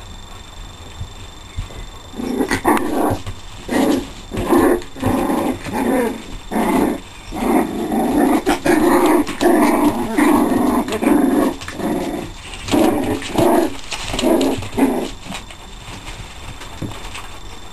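Puppies play-growling: a run of short growls starting about two seconds in, running together into a longer growl in the middle, and stopping a few seconds before the end.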